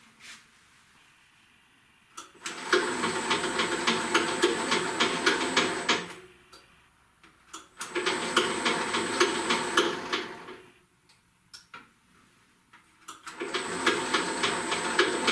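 Famag Grilletta IM 5-S spiral dough mixer running with a steady high whine and dense fast ticking, started and stopped in three runs: about four seconds, then about three, then starting again near the end.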